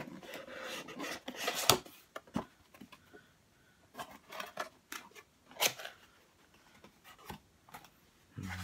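A small cardboard box being opened by hand: the flaps scrape and crackle as they are pulled apart, with a few sharp snaps of cardboard, the loudest about a second and a half in and another a little before six seconds.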